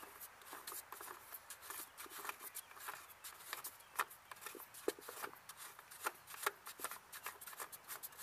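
The plastic cap on a lawn tractor engine's air filter housing being unscrewed by hand: a run of small, irregular clicks and scrapes.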